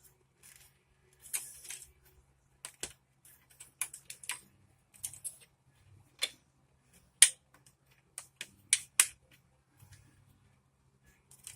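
Lego bricks and plates being worked by hand: irregular, sharp plastic clicks and clacks, with a louder snap about seven seconds in.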